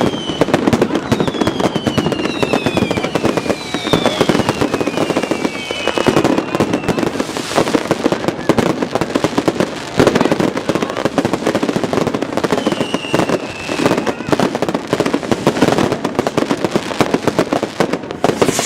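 Many fireworks and firecrackers going off at once: a dense, unbroken crackle of pops and bangs, with a few louder bangs standing out. Whistling fireworks give falling whistles through the first six seconds and again around thirteen seconds.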